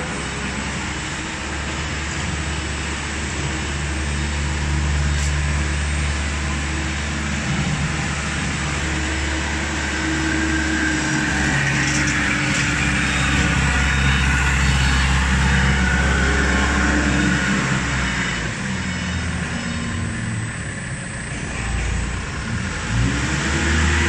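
Steady, engine-like machinery noise with a strong low drone. It drops away for a few seconds late on, then comes back with its pitch rising near the end.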